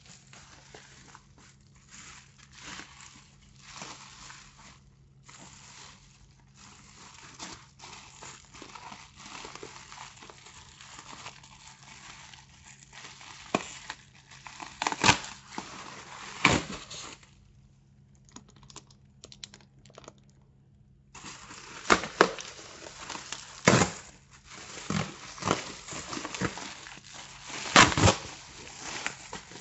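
Packaging being handled and unwrapped, crinkling and rustling almost continuously. It pauses for a few seconds just past the middle, and there are several sharp, loud clicks. A faint steady hum runs underneath.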